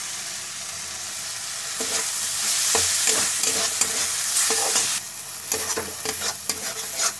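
Metal spatula stirring and scraping freshly added tomatoes with peas and potatoes in a kadhai, over a steady sizzle of frying masala. About five seconds in the hiss eases a little while the quick scraping strokes go on.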